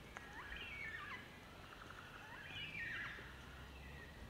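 Small birds calling: a phrase of whistled notes sliding up and down in the first second, then a quick rattling chatter and another sliding whistled phrase around two to three seconds in, over a faint low background rumble.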